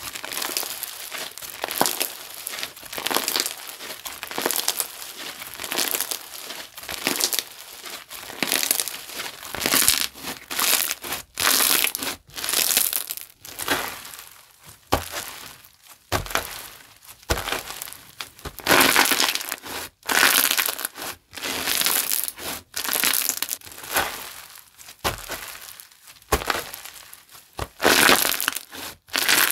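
A glue-based slime being squished, pressed and stretched by hand, making a continuous run of irregular wet, crackly squishes and snaps.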